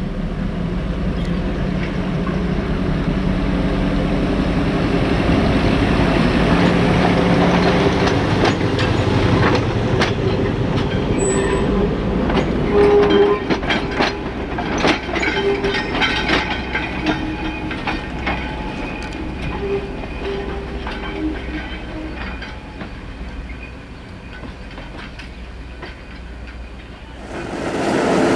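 Small diesel shunting locomotive running at low speed as it hauls a short train of wagons, its engine a steady low drone, with the wheels clicking over rail joints and giving short squeals as the train passes.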